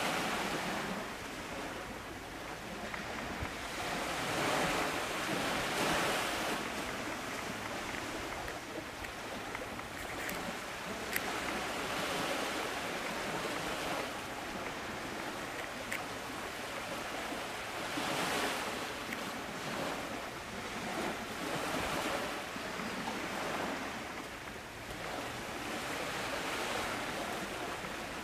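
Small sea waves breaking and washing onto the shore, a steady rushing that swells and fades every few seconds.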